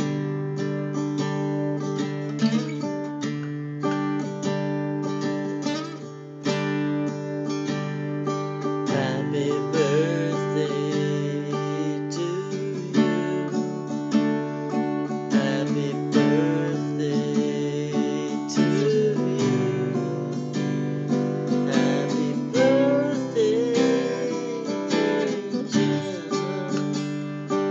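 Acoustic guitar played steadily, strummed chords ringing. From about nine seconds in, a voice hums a wavering melody over it.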